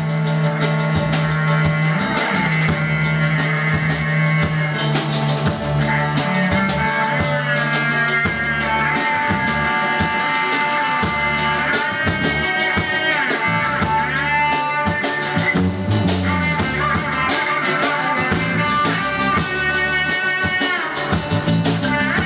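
Instrumental rock music: drum kit, bass and guitar playing, with a high lead line that slides up and down in pitch.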